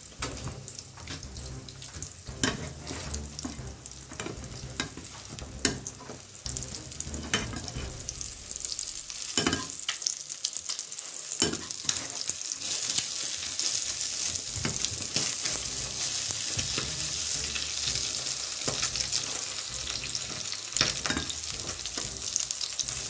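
An egg frying in a hot pan, sizzling steadily, the sizzle growing louder about a third of the way in. A metal spatula clicks and scrapes against the pan at intervals as the egg is worked loose and turned.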